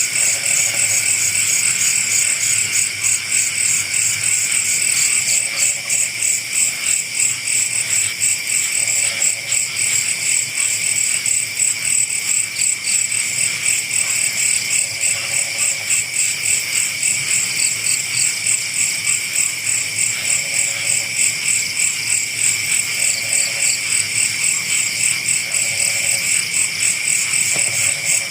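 Loud, steady night chorus of crickets or katydids, a fast even pulsing, with short low frog calls now and then.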